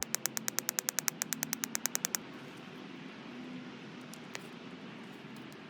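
A small hammer tapping a nail into the sealed end of a grease tube: a very even run of sharp taps, about ten a second, for about two seconds, then a steady hiss with one more tap.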